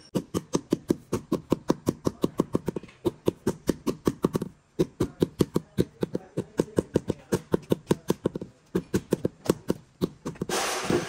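Rubber mallet tapping a marble slab in quick, even strikes, about five or six a second, with a short pause partway through and slower taps later on: the slab is being bedded and levelled onto fresh cement slurry and mortar. A loud rushing noise comes in near the end.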